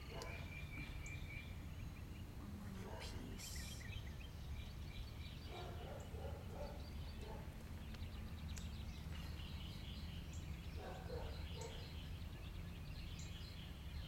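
Outdoor background: a steady low rumble with small birds chirping now and then.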